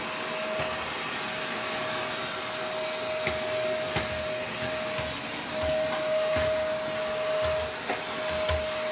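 Vacuum cleaner running steadily, its motor holding one steady whine over a constant rush of air. A few faint clicks sound over it.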